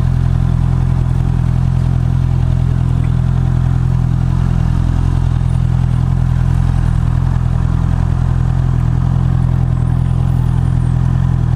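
Honda CB650R's inline-four engine running steadily through its stock exhaust, holding an even pitch with no revving.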